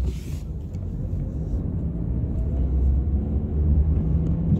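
Car driving, heard from inside the cabin: a steady low road and engine rumble.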